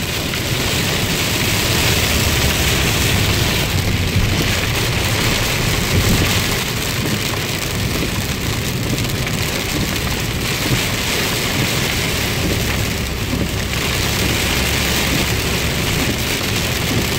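Heavy rain hitting the windshield and roof of a moving car, heard from inside the cabin over the low rumble of the car on the road. The hiss of the rain swells and eases several times.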